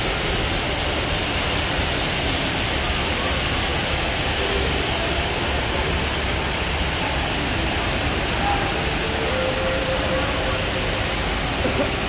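The Rain Vortex, the world's tallest indoor waterfall, pouring steadily into its pool: a constant, even rushing of falling water, with a few faint voices near the end.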